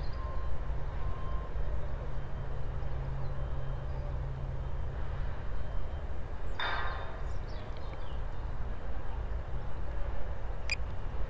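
Steady low outdoor rumble, with a short pitched call about six and a half seconds in and a sharp click near the end.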